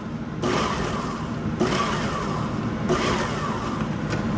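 Electric food processor pulsed three times, about a second each, its motor whirring up and winding down between pulses as the blade chops peeled boiled crawfish tails.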